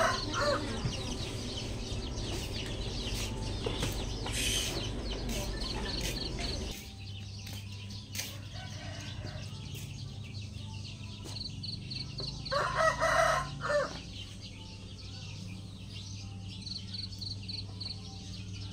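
A rooster crows once, a little past halfway, the loudest sound here. A low steady hum runs underneath, and faint short high chirps repeat now and then.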